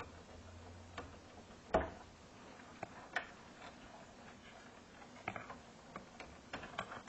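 Scattered small clicks and ticks of wires and crimped terminals being handled and tugged on a circuit board inside an amplifier chassis, the loudest a sharp click a little under two seconds in and a cluster of lighter ones near the end.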